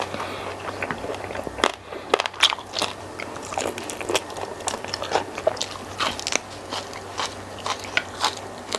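Close-miked eating: biting and chewing jumbo squid in spicy sambal, with an irregular run of short wet clicks and smacks from the mouth and fingers.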